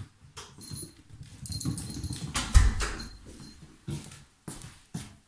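Close-up shuffling, rustling and knocking as a person moves about, with a heavy low thump about two and a half seconds in.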